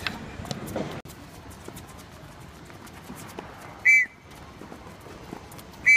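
Two short, loud blasts of a coach's whistle, about two seconds apart, over a low background of court noise.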